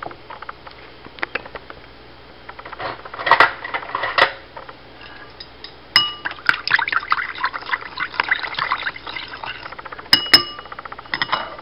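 Wooden chopsticks stirring sauce in a ceramic bowl, clinking and scraping against the bowl in quick runs of taps. A few sharper knocks that ring briefly come about six seconds in and twice near the end.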